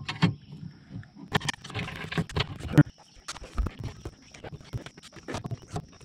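A screwdriver backing out the Phillips screws of a steel electrical junction box, with the metal box clattering. Irregular clicks, scrapes and knocks, the loudest knock about three seconds in.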